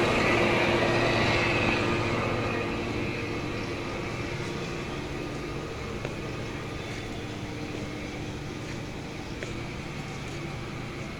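A machine running with a steady hum and rushing noise that eases off over the first few seconds, then holds steady.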